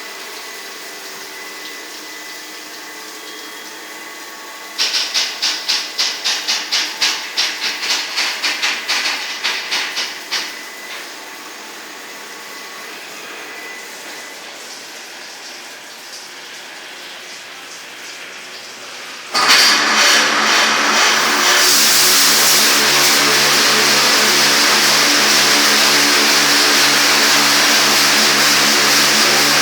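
Touchless automatic car wash machine at work: a quick series of short hissing bursts, about three a second for some six seconds, then, about two-thirds of the way through, a sudden start into a loud steady motor hum with a strong hiss that carries on.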